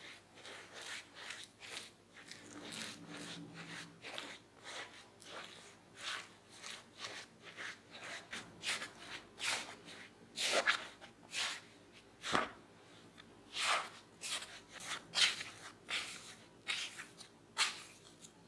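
Silicone spatula stirring and folding corn starch into mashed potatoes in a glass bowl: soft scraping, squishing strokes, a few each second, irregular, with several louder strokes in the second half.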